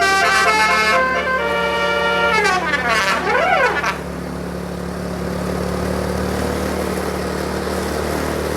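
Bus telolet air horn playing a melody of stacked tones that step between chords, slide down in pitch, then sweep up and down like a siren before cutting off about halfway through. A steady low engine hum carries on underneath and is all that remains afterwards.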